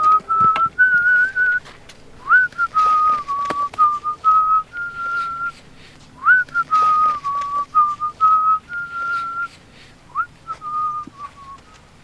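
Someone whistling a short tune. The same phrase comes round about every four seconds, each time opening with a quick upward swoop and then stepping between a few held notes.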